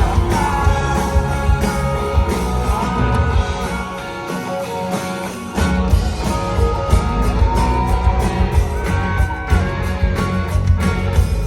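Live rock band playing an instrumental passage led by guitar. The bass and drums drop out for about a second and a half midway, then the full band comes back in.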